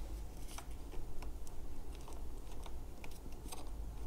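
Scattered small clicks and taps of hands working at wiring and plastic parts, unplugging a battery connector inside an InMotion V11 electric unicycle to cut its power.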